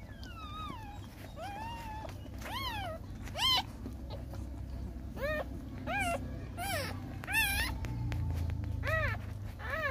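Newborn puppies crying: about ten short, high-pitched whimpering cries, each rising and falling in pitch, over a low rumble.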